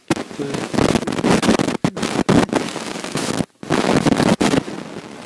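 Loud, rough crackling noise on the camera's microphone, full of sharp clicks, cutting out for an instant about three and a half seconds in and settling to a quieter steady hiss near the end.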